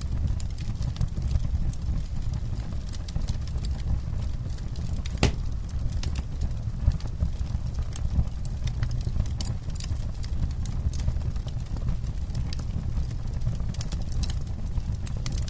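Campfire crackling: irregular sharp pops and snaps from the burning wood over a steady low rumble, with one louder pop about five seconds in.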